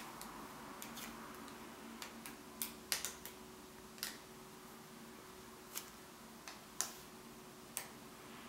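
Faint handling noises as hands turn and squeeze a foam milk-bottle squishy toy: about ten light, scattered clicks and ticks over a faint steady hum.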